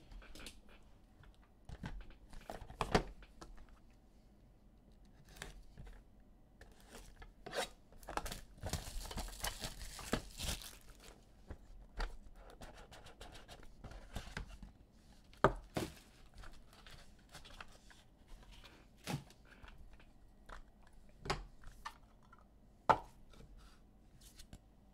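A trading-card pack wrapper being torn open, a rustling rip lasting about two seconds from around eight seconds in, amid scattered light taps and clicks of cards being handled.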